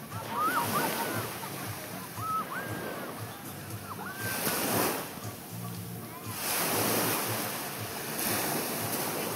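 Surf washing onto a sandy beach, swelling in surges a few times, with some wind. Short high whistled calls, often in pairs, sound over it now and then.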